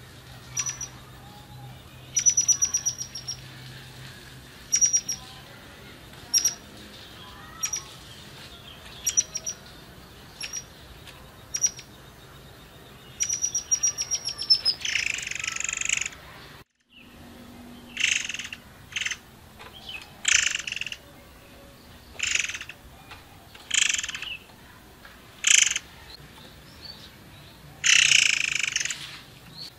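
A caged murai air songbird calling. At first it gives short runs of rapid, high ticking notes; after a brief break it gives louder, fuller call phrases about every two seconds.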